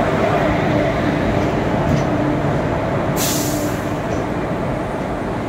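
Passenger train coaches rolling along a station platform behind a WAG-5 electric locomotive, a steady rumble with a faint hum, easing off slightly. A short hiss of air cuts in about three seconds in.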